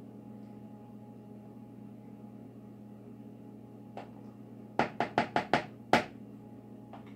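Sharp knocks of a wooden-handled utensil tapped against a Miracle Whip jar: a single tap about four seconds in, then a quick run of five knocks near the end. A steady low hum lies underneath.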